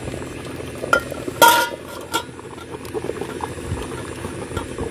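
Water boiling and bubbling in a steel idli steamer, with a sharp metallic clink of steel vessel or lid about a second and a half in and a few lighter clicks.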